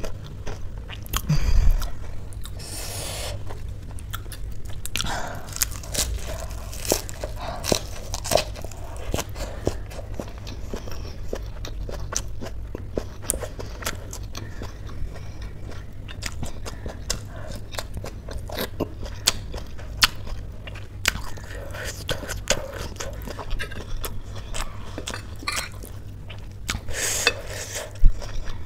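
Close-miked mouth sounds of someone chewing instant noodles, with many small wet clicks and smacks. A sharp clink of a metal fork against the plate comes near the end.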